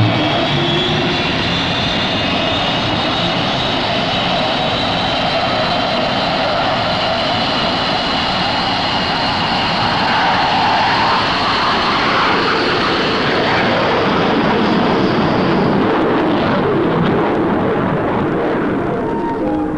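Aircraft engines running steadily and loudly, with a high tone slowly rising in pitch; music comes in at the very end.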